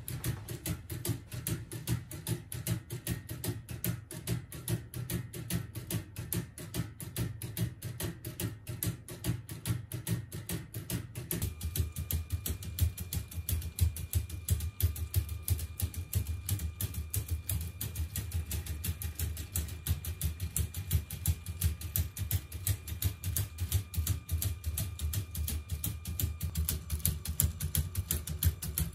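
LEGO Technic tourbillon mechanism running, its plastic escapement ticking rapidly and evenly. About 11 s in, a steady whine joins the ticking as the tourbillon cage is set turning.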